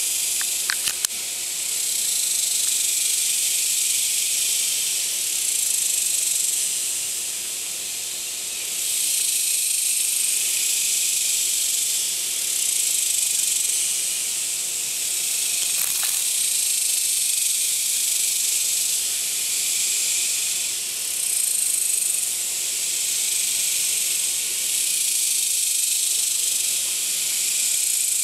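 Cicadas buzzing: a loud, steady, high-pitched drone that swells and eases every few seconds, with a brief click about a second in and another midway.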